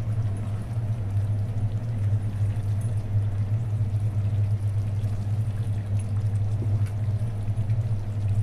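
A steady low hum, with faint scraping and ticks of a spatula stirring wet rice and chicken in a pan.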